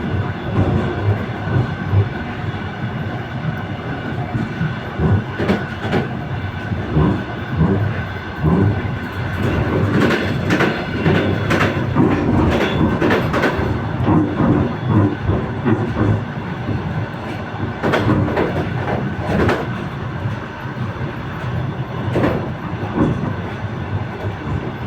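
Passenger train running, heard from the vestibule of a railway carriage: a steady rumble of wheels on rails with the clickety-clack of wheels knocking over rail joints throughout.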